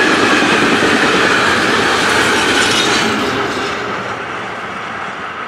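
Container freight train's wagons rolling past on the rails, the steady wheel-on-rail noise dying away as the end of the train passes.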